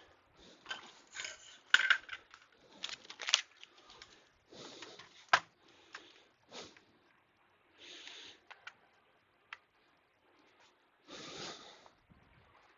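Irregular clicks, knocks and light scraping as small computer parts and tools are handled, the sharpest clicks about two, three and five seconds in. A few short breaths through the nose come in between.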